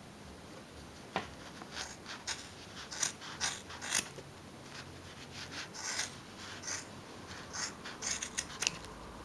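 Scissors snipping through the loops of a wool-yarn pompom: a run of irregular short snips starting about a second in and going on until near the end.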